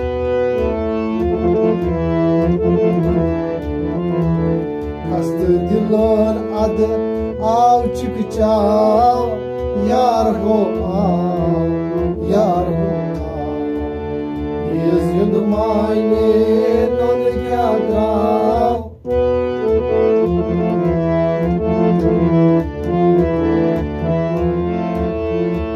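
Harmonium playing a melody in held reedy chords over a steady hand-played beat on a clay pot drum. A voice sings two phrases over it in the middle, and the music drops out for a moment about three-quarters of the way through.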